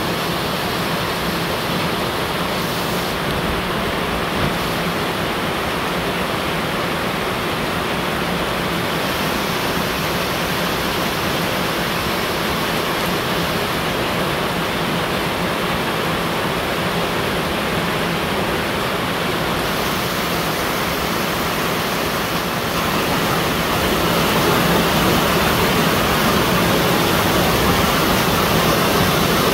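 Heavy rain pouring down, a steady even rush that grows a little louder about three-quarters of the way through.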